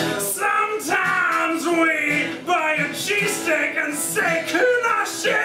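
Acoustic guitar playing, with a voice singing over it.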